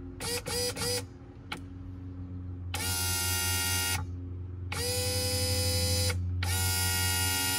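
Electric motor of a Volvo Penta SX-A power trim/tilt pump whining as it is switched on and off: a few quick blips in the first second, then three runs of about a second and a half each, driving the trim cylinder. This is a bench-style test of the reinstalled pump with its fluid still low, and it runs.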